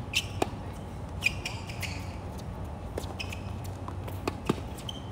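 Tennis rally on a hard court: a handful of sharp pops as the ball comes off racket strings and bounces on the court, the loudest about a second in. Short high squeaks of tennis shoes on the court come between the hits.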